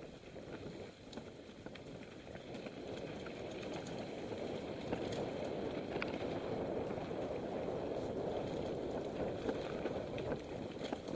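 Mountain bike rolling fast over a dirt and rock singletrack: a steady rushing of tyres and ride noise with scattered sharp clicks and rattles from the bike over the ground, growing louder about four seconds in.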